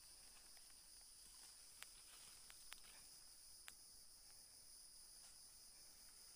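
Near silence: a faint steady high drone of insects, with a few faint clicks.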